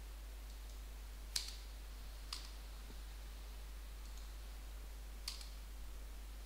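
Computer mouse clicking: three sharp single clicks, about a second apart and then after a three-second pause, with a few fainter ticks between.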